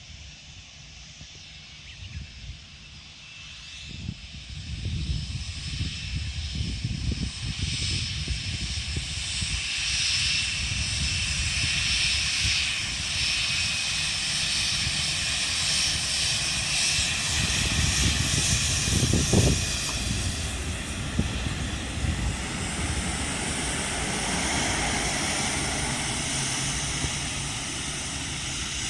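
Jet airliner's engines passing close by: a deep rumble with a high whine that swells about four seconds in, stays loud through the middle and slowly fades near the end.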